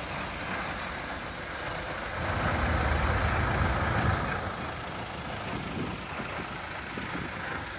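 Vintage tractor engines running as a line of classic tractors drives slowly past. A blue tractor passing close makes it loudest about halfway through, then the engine sound eases as it moves on.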